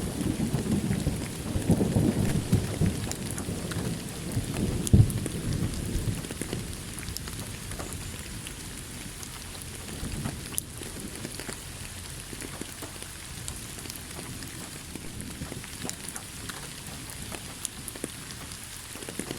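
Thunderstorm: rolling thunder that fades away over the first several seconds, leaving steady rain with scattered sharp drop ticks.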